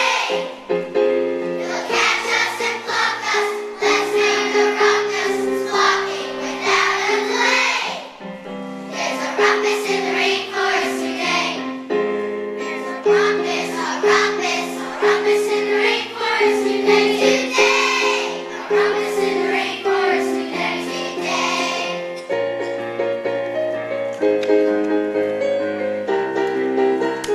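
A choir singing over a musical accompaniment of held notes; the voices thin out near the end, leaving mostly the instruments.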